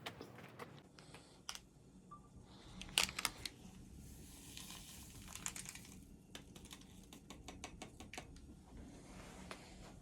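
Irregular sharp clicks and crackles, a few louder ones about three seconds in, with a brief hiss a little after.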